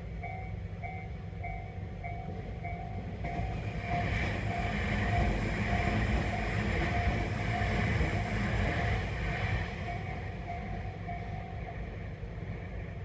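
Japanese railway level-crossing warning bell ringing, a rapid repeating electronic ding. A Tobu Noda Line electric train passes over the crossing between about four and ten seconds in, adding a louder rumble. The bell stops about two seconds before the end, once the train has cleared.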